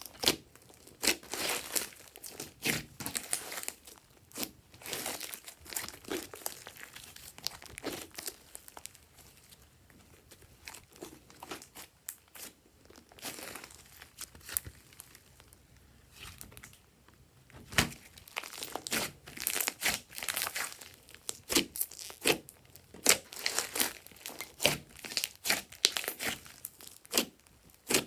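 Glossy slime being stretched, squished and mixed by hand, giving off irregular sticky crackles and pops. The crackling thins out and quietens in the middle, then picks up and grows louder again.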